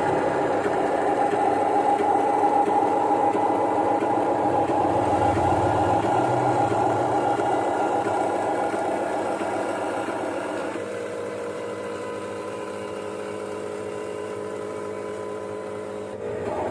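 A radio-controlled construction model running, giving a steady motor whir with a hum. It drops to a lower, quieter setting about two-thirds of the way through.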